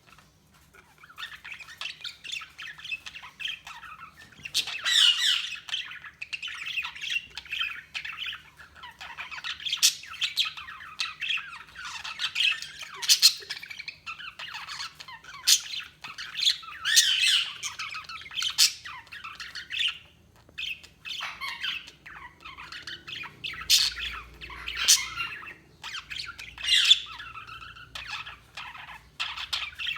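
Budgerigars chattering and warbling, with frequent sharp squawks and chirps mixed in.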